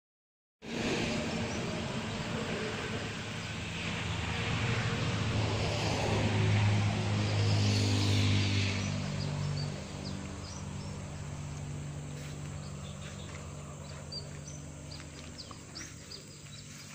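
An engine running with a steady low hum, louder in the middle and dropping in level and pitch about ten seconds in. Short, high chirps of small wild animals are scattered over the second half.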